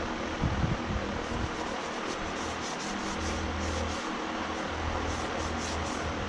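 Steady fan-like whir and hiss with a low hum, and faint light ticking in the middle and again near the end.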